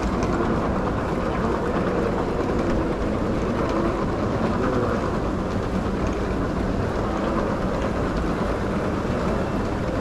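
Steady rumble of an airport moving walkway running, mixed with the even hum of a large terminal hall, with no distinct events.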